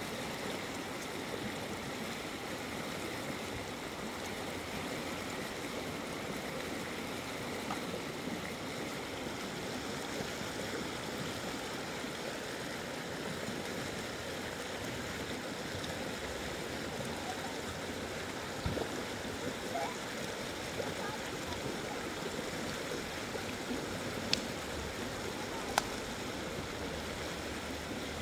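River water rushing steadily, with two sharp clicks near the end.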